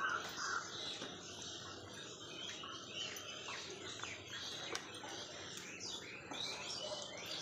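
Outdoor birds chirping and calling steadily, with a couple of louder calls right at the start. Faint scattered clicks and rustles come from hands pressing soil into a plastic tub.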